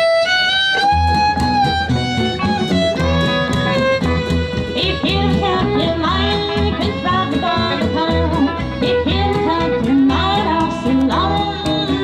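Live old-time country band music: a fiddle leads the tune, starting with a long sliding note, over an upright bass line and hollow-body electric guitar rhythm.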